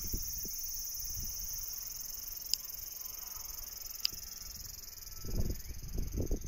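Steady high-pitched chorus of insects buzzing in the vegetation. Two sharp clicks come midway, and low rumbling thumps, like wind or handling on the microphone, come near the end.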